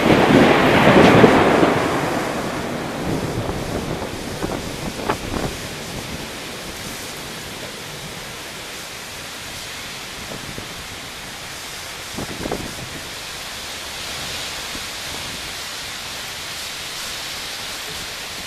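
A loud thunderclap breaks right at the start and rumbles away over the next few seconds. Heavy, steady downpour follows, with a few faint knocks.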